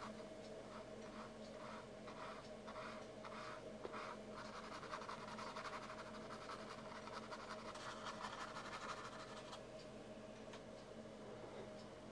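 Paintbrush bristles brushing over canvas, softening the edges of painted flowers into the background. First come short soft strokes about two a second, then faster continuous scrubbing that stops a few seconds before the end. A faint steady hum lies underneath.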